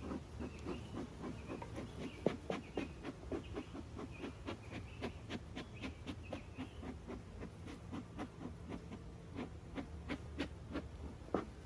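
Honeybees buzzing around an open hive, with a fast, irregular run of short clicks throughout.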